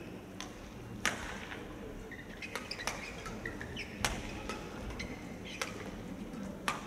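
Badminton rally: sharp racket strikes on the shuttlecock every second or so, the loudest about a second in, four seconds in and near the end, with short shoe squeaks on the court floor between them.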